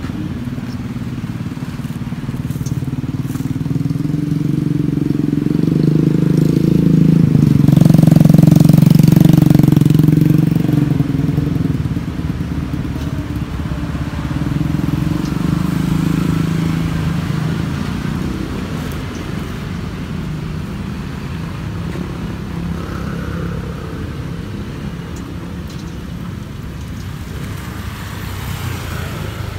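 Motor vehicles passing close by on the road: one engine rumble swells to its loudest about eight seconds in and fades away, and a second, quieter one passes a few seconds later.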